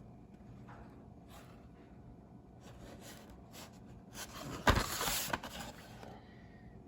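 Toy blister-card packaging handled: faint scattered rustles, then a sharp knock with a short burst of rustling about two-thirds of the way through.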